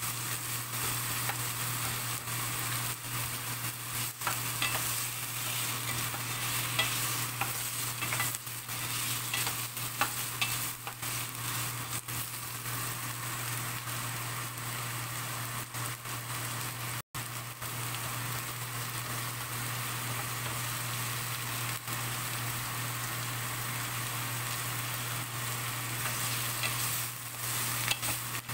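Sliced carrots sizzling in oil in a stainless steel frying pan, with a spatula scraping and stirring them during the first half and again near the end. A steady low hum runs underneath, and the sound cuts out for an instant a little past halfway.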